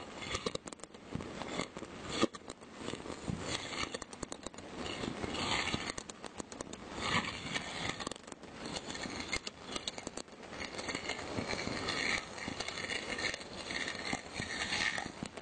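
Fireworks and firecrackers going off in a dense, continuous crackle of many small sharp pops, with one louder crack about two seconds in.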